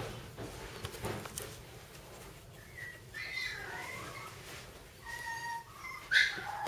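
Young Cairn Terrier puppies squeaking and whining: a few short high-pitched cries, the loudest one near the end.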